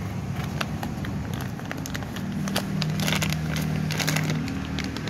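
A small cardboard box being opened by hand and a plastic-bagged part lifted out: crinkling plastic and cardboard rustling, with a string of small clicks, densest about three to four seconds in. A steady low hum sits underneath from about two seconds in.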